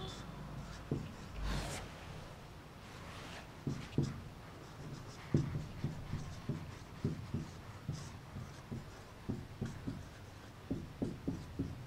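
Chalk writing on a blackboard: a run of short, irregular taps and scrapes as the words are written out.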